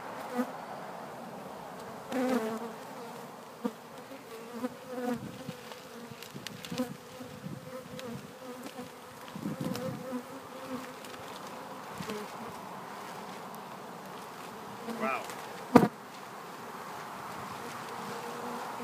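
A mass of Africanized honeybees buzzing steadily around their colony in a box, a dense wing drone, with scattered knocks and clicks and one sharp knock late on.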